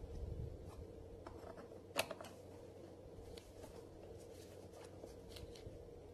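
Faint clicks and scrapes of a screwdriver turning the screws on a STIHL trimmer's plastic air filter cover, with one sharper click about two seconds in. A faint steady hum runs underneath.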